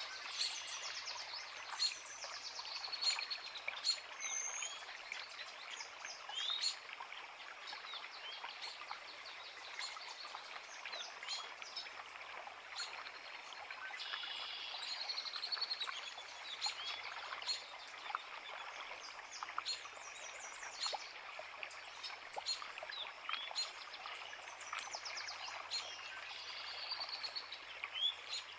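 Several songbirds singing and chirping, with many short whistled phrases and calls overlapping, over the steady rush of a forest creek.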